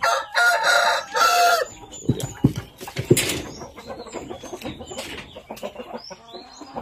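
A Shamo gamecock crows once, loud, for under two seconds with a short break in the middle. Then come a few sharp knocks and soft clucking from the pens.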